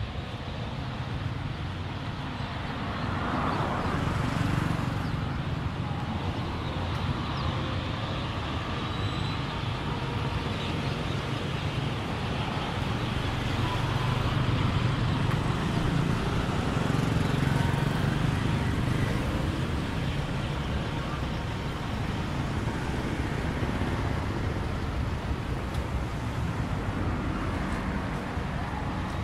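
Road traffic: cars and pickups driving past close by, a steady low rumble that swells as vehicles go by, a few seconds in and again around the middle.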